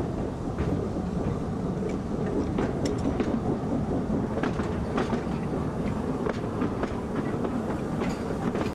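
Small Peckett saddle-tank steam locomotive moving slowly along the track: a steady rumble with irregular clicks and clanks from the wheels over the rails.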